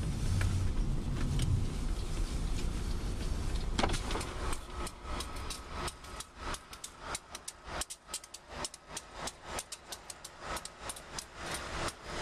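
Low engine rumble for about four seconds, then a quieter stretch filled with rapid, irregular sharp clicks and ticks.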